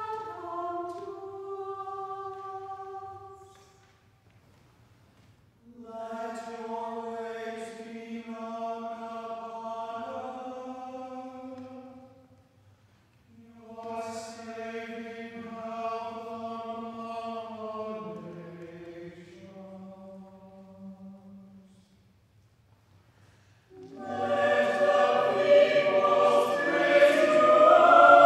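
Mixed SATB choir singing a cappella in slow phrases separated by brief pauses. Near the end the singing becomes much louder and fuller.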